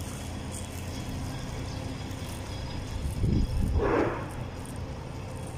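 Steady low rumble of road traffic, with a short louder noise about three and a half seconds in.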